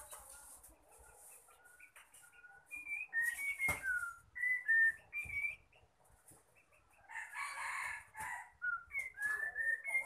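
A caged bird calling in a series of short, clear whistled notes at varying pitches, with a longer, harsher call lasting about a second, around seven seconds in.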